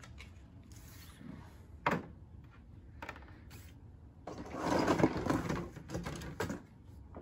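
Hard plastic toy playset pieces handled and set down on a table, with a sharp click about two seconds in, then a louder rustle of hands rummaging in a worn cardboard box around five seconds in, with a few light clicks after it.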